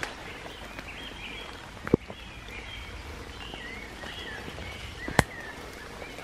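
Woodland birdsong: a songbird's short whistled phrases and chirps, some dropping in pitch, over a steady background hiss, broken by two sharp clicks about two seconds and five seconds in.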